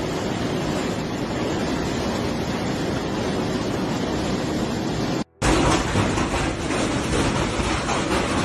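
Hailstorm: a steady rush of wind-driven hail and rain with many small hailstone impacts. The sound cuts out for a moment about five seconds in, then goes on a little louder.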